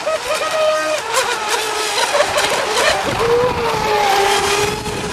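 Several petrol radio-controlled model power boats racing, their small two-stroke engines buzzing at high revs, the pitch wavering up and down as the boats turn and pass.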